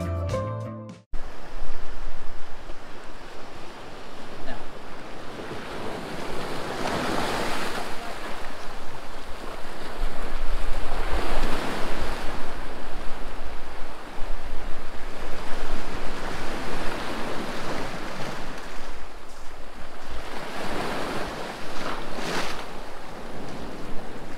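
A music track cuts off about a second in. Then small waves break and wash up a sandy shore, swelling and fading every few seconds, with wind rumbling on the microphone.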